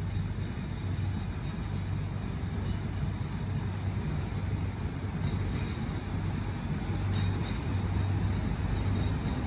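Narrow-gauge diesel locomotive of a cargo train approaching slowly, its engine a steady low drone that grows a little louder near the end.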